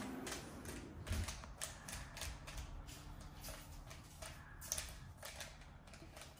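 Rubik's Cube layers being turned quickly by hand while it is solved: a run of irregular plastic clicks and clacks, several a second.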